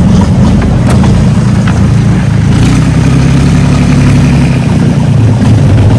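Engine of a small Mekong Delta motorboat (vỏ lãi) running steadily at low speed, loud and close, its pitch lifting slightly about halfway through.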